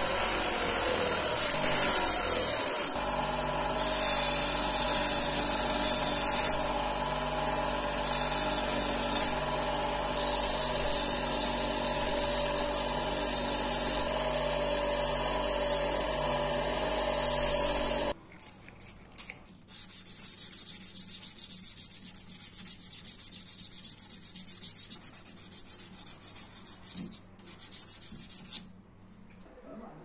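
Bench grinder running with a cloth buffing wheel while an epoxy-resin knife handle is pressed against it in repeated passes, the grinding hiss swelling and dropping every second or two over the motor's steady hum. About eighteen seconds in the grinder sound cuts off abruptly, leaving quieter rubbing and handling sounds with a brief louder noise near the end.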